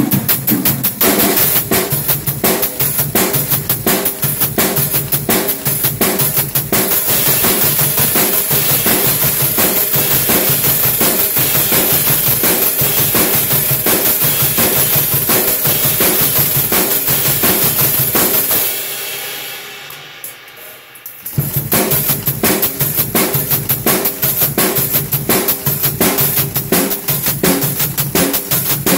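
Robot drummer's hi-hat cymbals played in fast, even strokes over a full drum beat with bass drum. The drumming stops for about two and a half seconds about two-thirds of the way through, then starts again.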